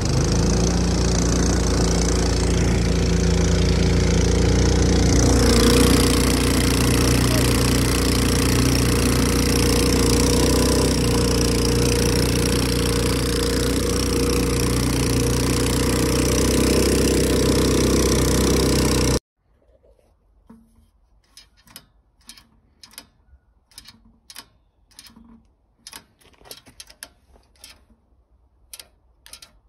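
The single-cylinder four-stroke GX200-clone engine of a longtail surface-drive boat motor runs steadily at speed under load, with a steady rushing hiss over it. About two-thirds of the way through it gives way abruptly to quiet, broken by a series of light clicks as the throttle linkage is worked by hand.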